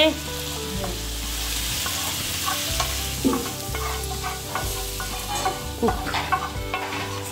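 Hot oil and spices sizzling in a frying pan, stirred with a wooden spatula: the tempering (jhaneko) for chicken choila. The sizzle is strongest in the first few seconds, with scattered taps and scrapes of the spatula against the pan.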